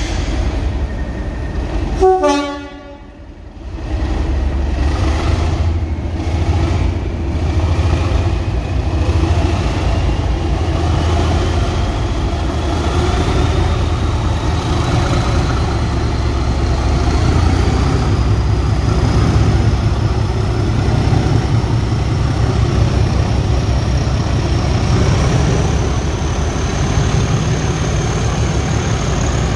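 Class 37 diesel locomotive 37706 gives one short horn blast about two seconds in, then its English Electric V12 diesel engine opens up as it pulls away with a train of coaches, exhaust smoking. A turbocharger whistle climbs steadily in pitch as the engine works harder.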